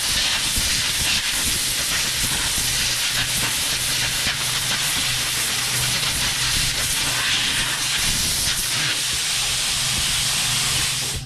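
Compressed air hissing steadily from an air nozzle, blowing dust out of a phone, with a low hum underneath; the hiss cuts off at the very end.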